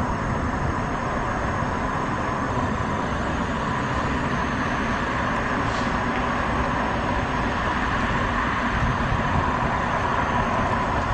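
Steady background noise of city traffic, a constant wash of sound with no distinct events.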